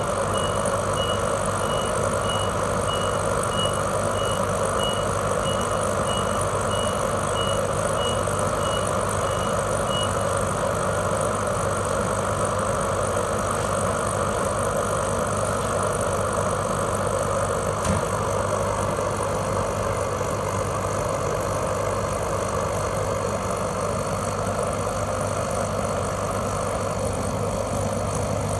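Orion ecodan HCM10 infrared kerosene heater running steadily, its fan and burner giving an even rushing hum. A high beep repeats about twice a second until about ten seconds in, and there is a single faint click later on.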